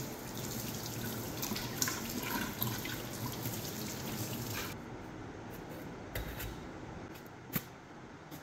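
Kitchen tap running onto a melon being rubbed clean by hand in a stainless steel sink, shut off abruptly about four and a half seconds in. After that, a few sharp knocks as the knife and melon go onto a plastic chopping board and the cutting starts.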